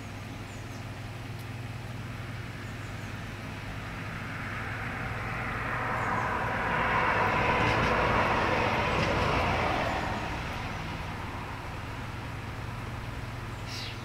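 A vehicle passing by. Its noise swells, is loudest about eight seconds in, then fades away, over a steady low hum.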